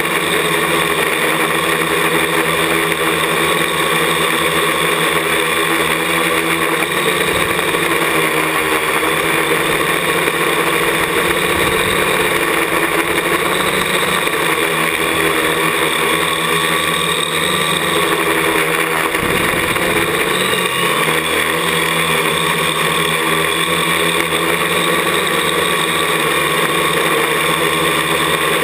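Parallax ELEV-8 quadcopter's brushless motors and propellers whirring steadily in flight, heard from the craft's own on-board camera. A few brief low rumbles rise under the whir, the longest about twenty seconds in.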